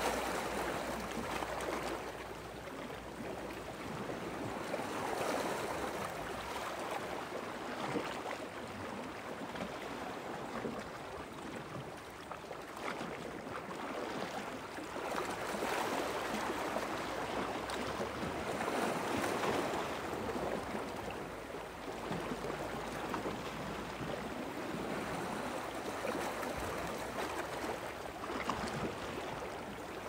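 Small sea waves lapping and washing at the water's edge, swelling and easing every few seconds with light splashes.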